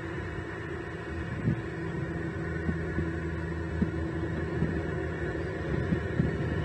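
Steady low hum with a few faint, irregular knocks, heard through a nest camera's microphone.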